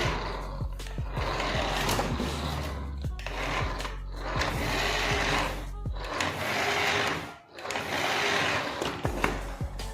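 Small electric motor and plastic gears of a toy remote-control vehicle whirring in repeated runs with short pauses between them, with scattered clicks.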